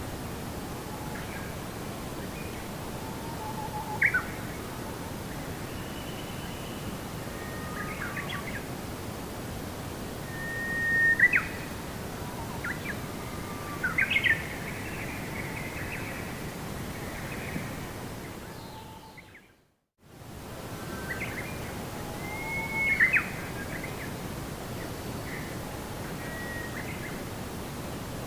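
Songbirds chirping and whistling in short, scattered calls over a steady outdoor background hiss. The whole soundscape fades out to silence for a moment about two-thirds of the way through, then fades back in.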